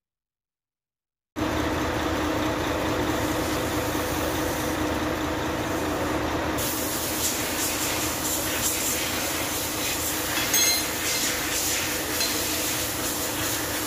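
About a second of silence, then steady machinery noise: a hum with a hiss over it. A few light metal clinks about ten seconds in, as the gearbox parts are handled.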